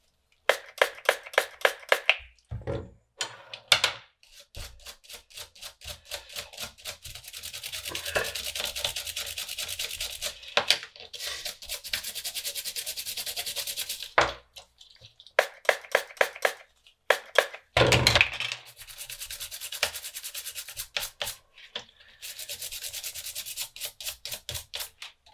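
Brush scrubbing a circuit board with quick back-and-forth strokes, several a second, to clean off flux residue.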